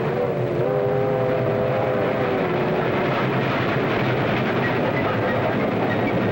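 Steam-hauled train running at speed: a dense, steady rush of wheel and car noise. A held chord of several tones sounds over it at first and fades out about two and a half seconds in.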